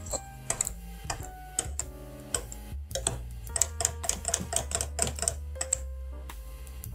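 Wire whisk clicking and scraping against a glass bowl as eggs are beaten into cheesecake batter, in quick runs of taps that come fastest in the second half, over background music.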